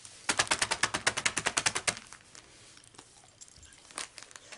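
A rapid, even run of sharp plastic clicks, about a dozen a second for under two seconds: the zip seal of a large clear plastic storage bag being run along by hand. A few faint ticks follow, with one sharper click near the end.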